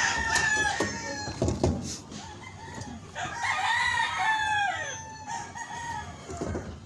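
Rooster crowing: one crow trailing off about a second in and another full crow from about three seconds, its pitch falling at the end. A few short knocks sound between the crows.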